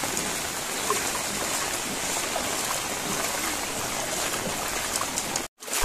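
Steady rain with running floodwater, an even wash of water noise. The sound cuts out briefly near the end.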